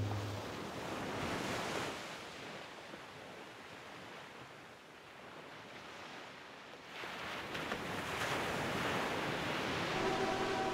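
Ocean surf breaking over rocks, a rush of churning white water that swells, eases off in the middle and builds again about seven seconds in.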